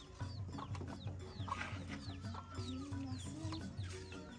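Village chickens clucking, with many short, high chirps falling in pitch, two or three a second, over background music.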